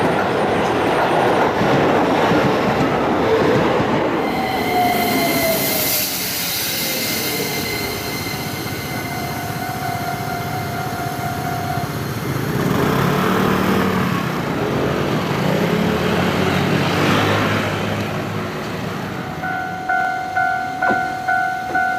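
An electric train runs past at close range, its wheels clattering over the rails, then fades with a falling whine. Near the end a level-crossing warning bell starts ringing, about one and a half strikes a second.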